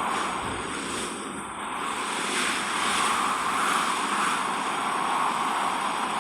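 Steady rushing wind noise that dips slightly about a second in and then swells again.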